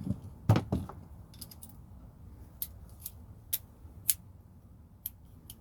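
Sharp metallic clicks and clacks from a Klein 14-in-1 multi-bit screwdriver's shafts and bit pieces being handled and reset: two louder clacks about half a second in, then lighter scattered clicks.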